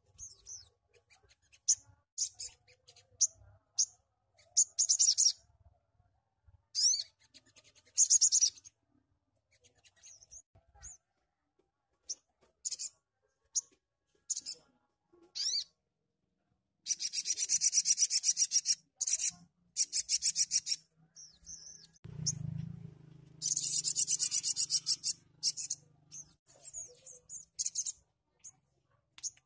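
A brown-throated sunbird (sogon) calling: sharp, very high chirps scattered throughout, with two longer rapid twittering trills, one just past halfway and one near the end.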